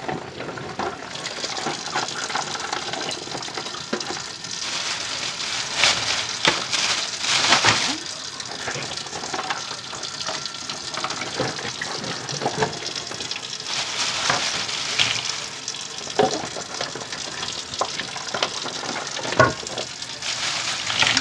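Kitchen tap running while frozen mussels are rinsed under it, with scattered clicks and knocks throughout.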